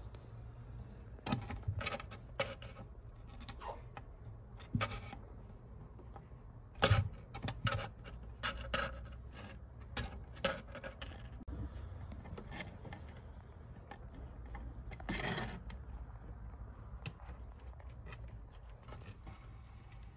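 British shorthair kittens' claws scratching and clicking on the wooden sides of their nest box, with short kitten meows now and then.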